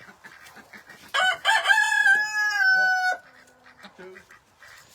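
Rooster crowing once, a loud call of about two seconds that starts about a second in, rises sharply, holds steady and drops slightly before cutting off.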